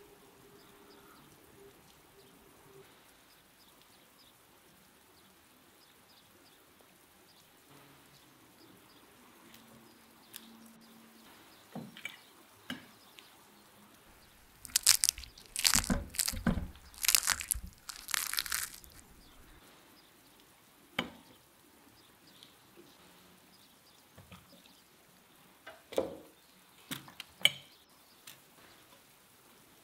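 Crispy tandoor-roasted chicken skin crunching and crackling in a cluster of loud bursts lasting about four seconds, about halfway through, followed by a few scattered taps and clicks.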